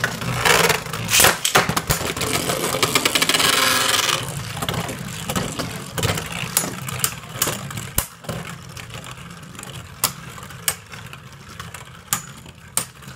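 Plastic-and-metal Beyblade Burst tops spinning in a plastic Slingshock stadium, grinding over the floor and clacking sharply as they hit each other. The dense spinning noise dies down about four seconds in, leaving scattered clicks and knocks.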